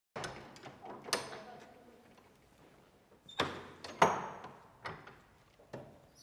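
A heavy wooden church door is handled and opened: a series of sharp clicks and clunks from its latch and frame, with the loudest knock about four seconds in. Each one rings out in the echo of the stone interior.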